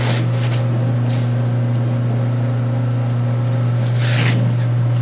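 Chip auger of a 1995 Haas VF0 vertical machining center running forward, its drive motor giving a steady low hum. A few brief hissy rasps sound over it, the loudest about four seconds in.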